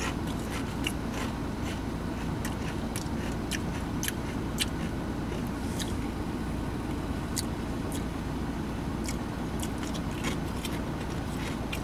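Someone chewing extra-crunchy potato crisps: irregular sharp crunches, several a second, over a steady low rumble inside a car.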